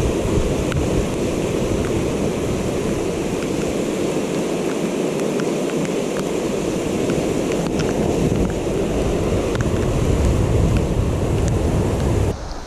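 Brown floodwater rushing and churning through a spillway into a whirlpool, a dense steady rush, with wind buffeting the microphone. Near the end the sound drops suddenly to a quieter level.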